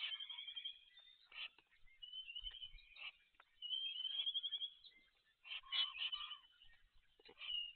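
Bird calls: several high, rapid trilled calls, each lasting about half a second to a second. Near the end come a few short, scratchy bursts.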